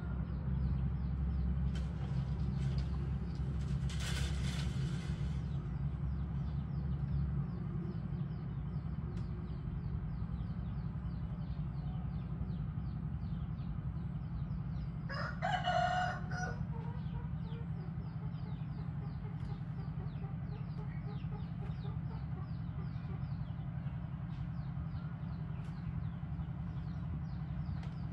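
A rooster crowing once, about halfway through, over a steady low hum.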